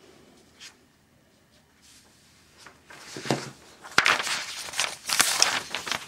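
Rustling and handling noises, starting about three seconds in, with a sharp click at about four seconds.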